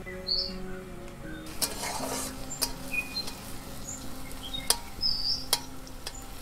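Shredded potatoes sizzling as they fry in oil in a metal wok, with a metal spatula clinking and scraping against the pan several times. Soft background music and short bird chirps run underneath.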